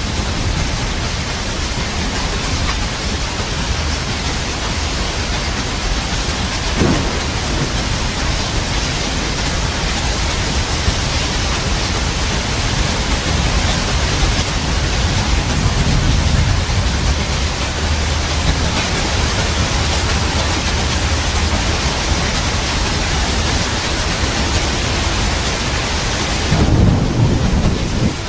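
Steady heavy rain with thunder rolling through it: a short crack of thunder about a quarter of the way in, a low rumble around the middle, and another rumble near the end, where the rain's hiss briefly drops.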